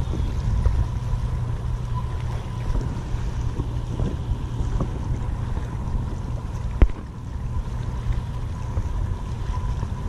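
Wind buffeting the microphone, a steady low rumble, with a sharp knock about seven seconds in.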